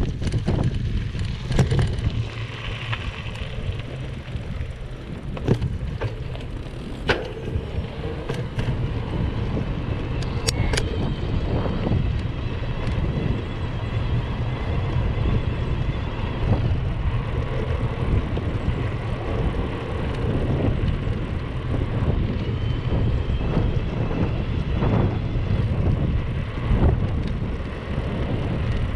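Mountain bike rolling over a dirt track and then wooden boardwalk planks: a steady low rumble of tyres and wind on the microphone, with a few sharp rattles and knocks from the bike.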